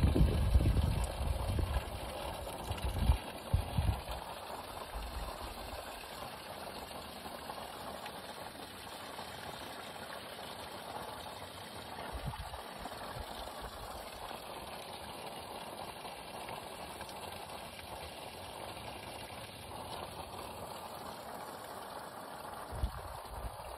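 Water from a hose running steadily into the goldfish pond, a continuous splashing hiss. Low rumbling bumps in the first few seconds and again near the end.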